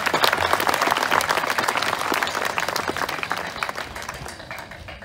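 Audience applauding a speaker, a dense patter of many hands clapping that dies away over the last couple of seconds.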